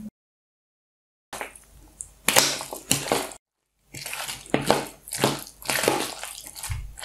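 A metal spoon stirring diced raw chicken with chopped onion and seasonings in a ceramic bowl, in repeated, irregular wet mixing strokes. The sound cuts out completely twice: for about a second near the start, and briefly in the middle.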